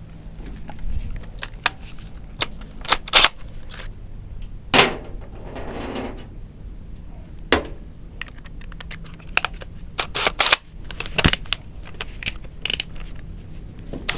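A string of irregular sharp clicks and knocks from hard objects being handled, a dozen or so, with the loudest clustered about three seconds in and again around ten to eleven seconds in. A faint steady low hum runs underneath.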